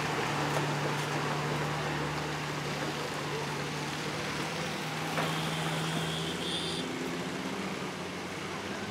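Tata city bus engine running as the bus drives off through standing floodwater, its hum slowly fading as it moves away.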